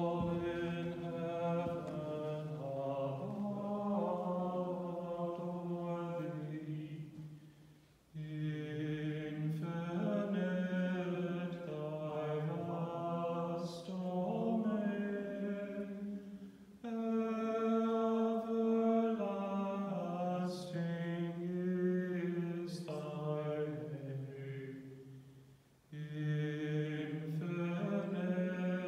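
A single man's voice chanting a sacred chant in plainsong style, long held notes in phrases of about eight to nine seconds, with three short breaks for breath between phrases.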